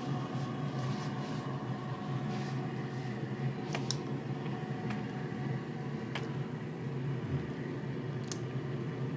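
Air fryer running: a steady fan hum with a low drone, and a few light clicks scattered through it.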